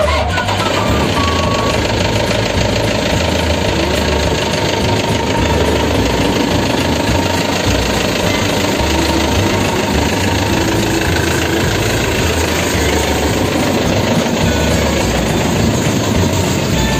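Rice combine harvester's diesel engine running steadily.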